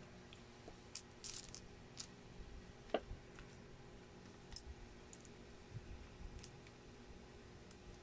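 Small plastic Lego pieces clicking and clattering now and then as they are picked from a loose pile and handled, with the sharpest click about three seconds in.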